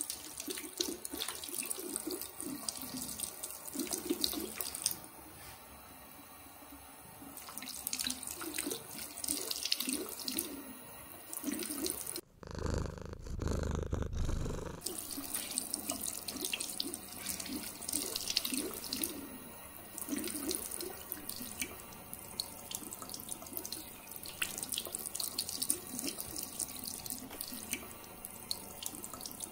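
Tap water running in a steady stream into a ceramic bathroom sink, splashing and spattering. About twelve seconds in, the water gives way for a little over two seconds to a dull, low sound.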